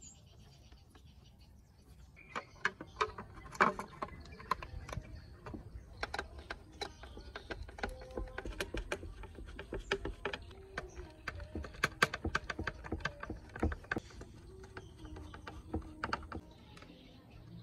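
Irregular clicks and taps of a screwdriver and small parts against the plastic cabinet of a CRT television while a speaker's wires and mounting screws are fastened, starting about two seconds in.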